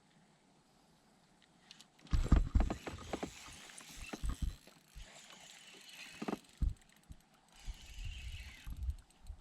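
Fishing kayak being moved or handled on the water: irregular knocks and thumps of gear and hull, with a watery hiss, starting about two seconds in after a quiet opening.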